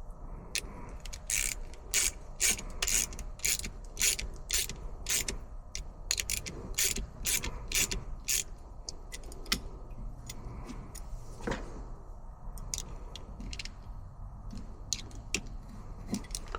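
Socket ratchet clicking as a battery terminal's clamp bolt is tightened: quick runs of clicks, about three a second in the first half, then scattered clicks.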